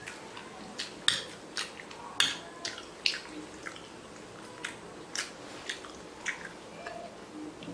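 Close-up eating sounds of hakka noodles being eaten with forks: wet slurps, lip smacks and chewing clicks, irregular, a few a second.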